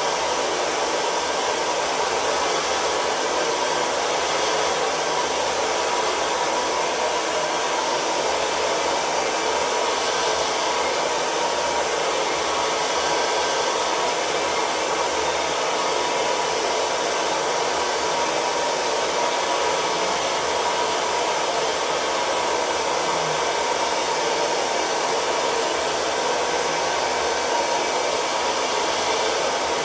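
BaByliss hair dryer running steadily at its maximum airflow setting: an even rush of air with a faint steady whine.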